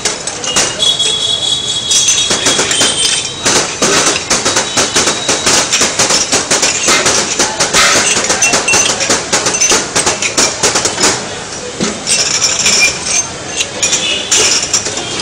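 Small drinking glasses clinking and clattering against a steel tray as they are shuffled and slid quickly by hand: a fast, uneven run of clicks and knocks.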